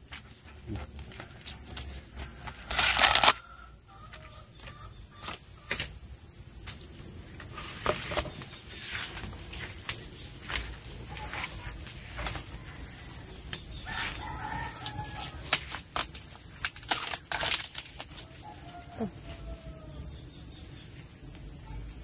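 Steady high insect drone with crackling rustles of dry corn husk as an ear of corn is peeled open, one loud tearing crackle about three seconds in. A rooster crows in the second half.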